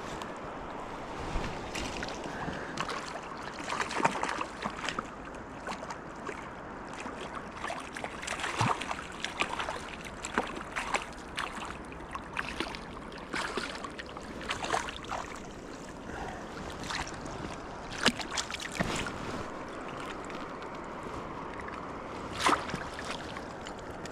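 River water running steadily, with many irregular small splashes and clicks throughout.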